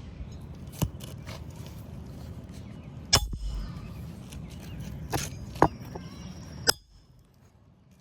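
A handful of sharp, irregularly spaced metal knocks from a hammer and roof snake working a replacement asphalt shingle into place, over steady low background noise.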